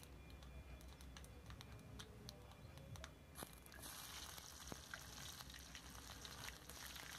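Mustard and fenugreek seeds giving scattered faint pops in hot coconut oil in a kadai. About three and a half seconds in, chopped onion goes into the oil and a faint, steady sizzle of frying starts.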